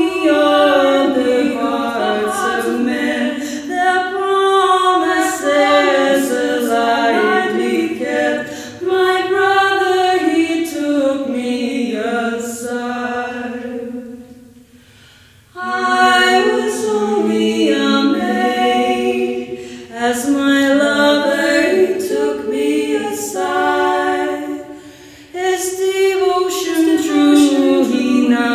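Two women's voices singing a cappella, a slow ballad sung without accompaniment. About halfway through, the singing fades out for a pause of about two seconds, then comes back in.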